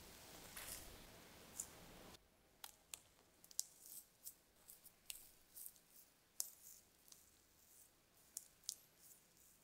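A spatula and then an offset palette knife dabbing and shaping stiff chocolate meringue on a baking tray lined with a baking sheet: faint, irregular light clicks and taps of the tools on the sheet and in the meringue.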